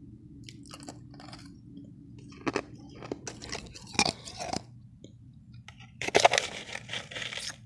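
Mouthfuls of refrozen powdery ice being crunched and chewed in bursts: a few faint crunches, then a louder run of bites and chews about two and a half seconds in, and the loudest crunching about six seconds in. A low steady hum runs underneath.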